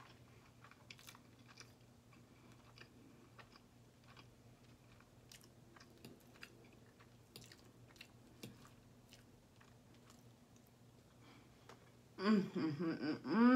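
Faint close-up chewing with scattered small mouth clicks, then near the end a woman's loud closed-mouth "mmm" of enjoyment, voiced twice while she chews.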